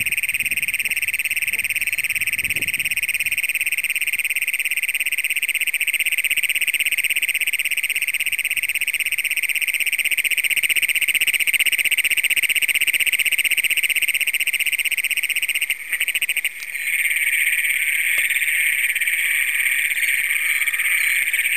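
A chorus of Great Plains toads calling, a deafening roar of long, rapid, buzzing trills that overlap continuously. The chorus breaks off briefly about three-quarters of the way through, then another trill starts up.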